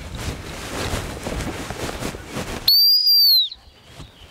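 A dog-training whistle blown in one long, high blast of just under a second, about two-thirds of the way in, its pitch bending slightly up then down. Before it there is a steady rushing noise.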